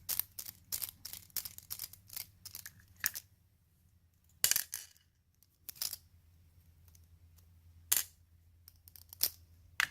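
Small metal clicks and clinks of a pin-tumbler lock and its parts being handled: a quick run of clicks for about three seconds, a short scrape about halfway, then a few separate clicks.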